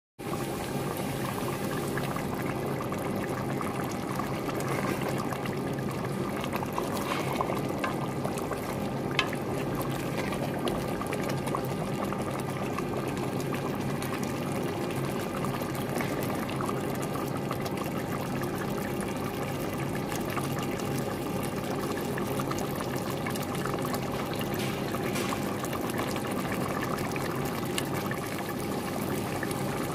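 Thick chicken curry bubbling steadily as it simmers in a steel pot, with a few light knocks as a wooden spoon stirs it.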